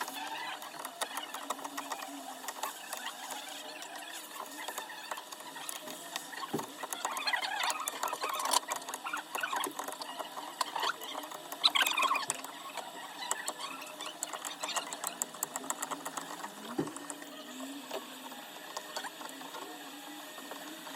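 Close-up scratching, crackling and fine clicking of small repair tools working on an iPhone 12 Pro Max's back glass. It goes on steadily, with louder scraping patches about a third of the way in and again near the middle.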